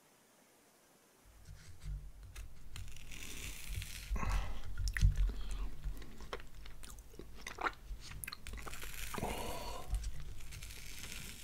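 Close-miked biting and chewing of pizza, with the crust crunching; it starts about a second in.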